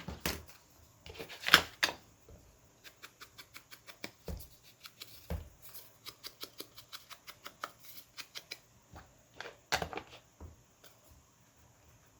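Paper-crafting handling sounds: a long run of quick, evenly spaced small snips or clicks, about four to five a second, between about three and nine seconds in, with a few louder paper rustles or taps near the start and about ten seconds in.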